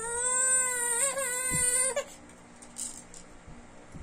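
A baby's long, high vocal "aaah", held at a steady pitch for about two seconds with a brief wobble partway through.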